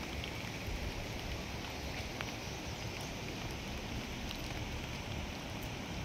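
Steady outdoor background noise: a low rumble under an even hiss, with a few faint ticks.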